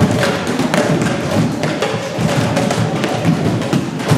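Background music with a beat over a continuous clatter of many hurleys knocking on balls and the wooden floor.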